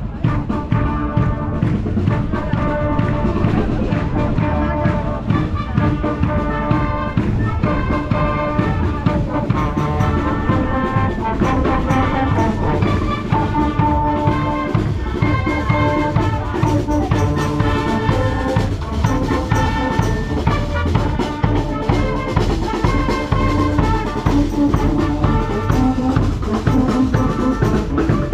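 Brass band playing a tune, brass with drums, at a steady loud level.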